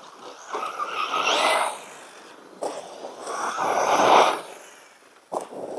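Brushless electric RC car driving on loose dirt, its motor and drivetrain whining and tyres scrabbling in bursts of throttle. It comes in two long pulls, the second loudest, then a short punch near the end.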